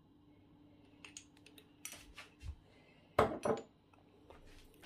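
Kitchenware being handled: a few scattered light clinks and knocks of glass and dishes, the loudest a quick double knock a little past three seconds in.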